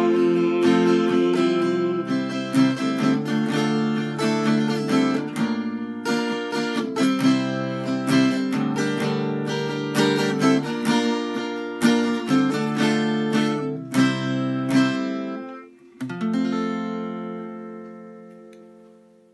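Backing music with no singing: acoustic guitar strummed in steady strokes, ending on a last chord about 16 s in that rings and fades out.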